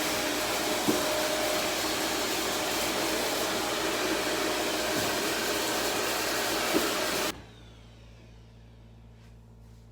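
Secondhand vacuum cleaner running with a steady loud whoosh, then switched off about seven seconds in, the noise cutting out abruptly.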